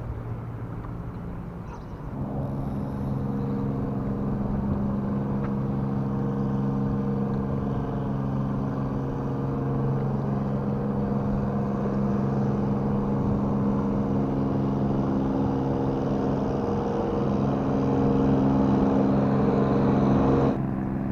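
An engine running at a constant speed, a steady hum with an unchanging pitch that comes in about two seconds in and stops shortly before the end.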